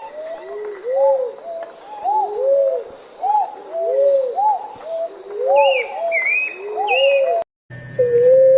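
Several doves cooing together, each call a short rising-and-falling coo, overlapping at different pitches and repeating about once a second, with a few higher chirps from another bird in the second half. After a brief break near the end, a loud steady held tone starts.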